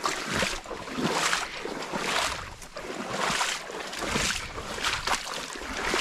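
Footsteps walking at an even pace, about one step a second.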